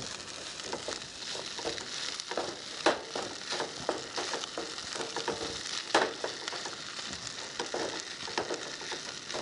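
Fried rice and diced steak sizzling in a pot on a camp stove while a wooden spatula stirs and scrapes through it, with two sharp knocks of the spatula on the pot, about three seconds in and again about six seconds in.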